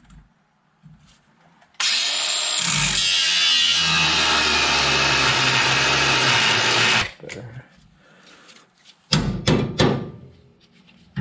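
Angle grinder with a cut-off wheel spinning up about two seconds in and cutting through the steel of the truck's front suspension tower for about five seconds, then stopping. A few sharp metal knocks follow near the end as a wrench is worked on the frame.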